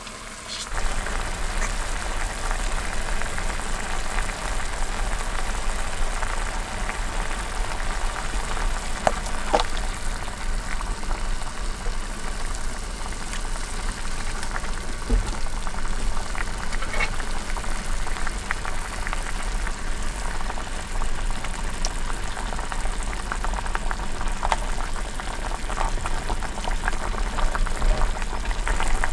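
Broth with fish pieces simmering briskly in a small black square pot over a tabletop burner: a steady bubbling with fine crackles, over a low steady hum. The sound starts up sharply about a second in.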